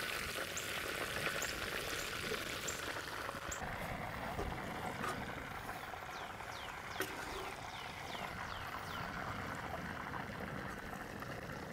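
Steady sizzling hiss of hot oil frying a whole chicken in a plow-disc fryer (discada). A few faint high chirps come through in the middle.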